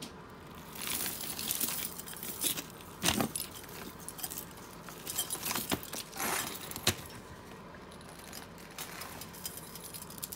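Metal costume jewelry jangling and clinking as a pile of chains and necklaces is handled and sorted, in irregular jingles with a few sharper clinks, the loudest about three seconds in.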